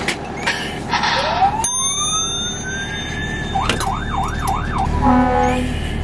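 Electronic alarm of a firefighter's SCBA pack (its PASS alarm) sounding during the pack check: a tone sliding up in pitch for a couple of seconds, then a fast warble, then a few short beeps.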